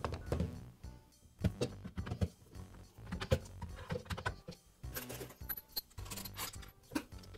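Scattered light clicks and knocks of a drill's housing halves being pushed together and handled, with a screw being set into the housing near the end.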